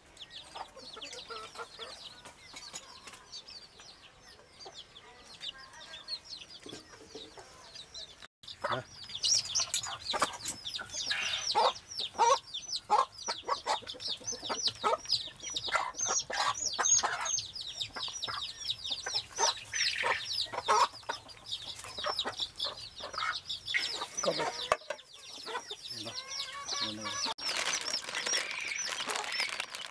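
Domestic chickens clucking and peeping: many short, rapidly repeated calls, faint at first and much louder from about eight seconds in.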